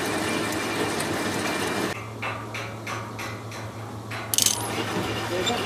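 Metal lathe running, turning a round steel plate, with a steady machine noise and a low hum. About two seconds in it cuts to the stopped lathe: light ticking about four times a second, then a sharp metallic clink, after which the running lathe is heard again.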